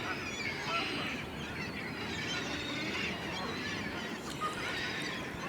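A large flock of hundreds of birds calling all at once: a dense, unbroken chorus of many overlapping short calls.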